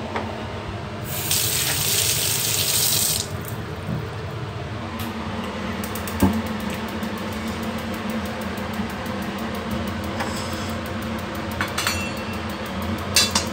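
A kitchen tap runs with a hiss for about two seconds, starting about a second in. About six seconds in comes a single knock as a metal wok is set on the stove, with faint rapid ticking and a steady low hum underneath.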